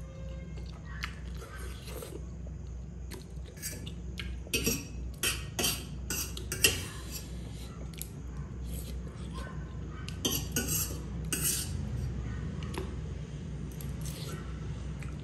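Metal fork clinking and scraping on a steel plate as instant noodles are twirled up and eaten, with slurping and chewing between. The clinks come in busy clusters, thickest about five seconds in and again about ten seconds in.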